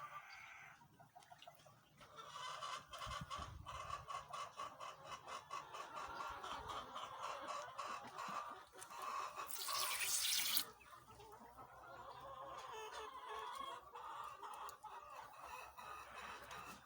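Flock of laying hens clucking, with many short clicks and calls. About halfway through, a loud rush of noise lasting about a second stands out over them.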